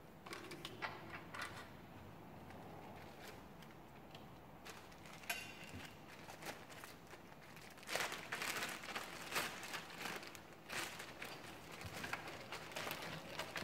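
Faint clicking, tapping and rustling of hand work on a Riello diesel burner's control unit, as the photocell's wires and plastic connector are handled. A busier run of clicks starts about eight seconds in.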